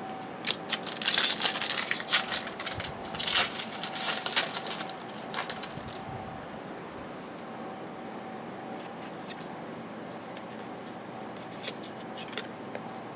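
Trading cards and their pack wrapper being handled, with crinkling and flicking sounds for about the first six seconds. After that there are only a few soft clicks over a faint steady hum.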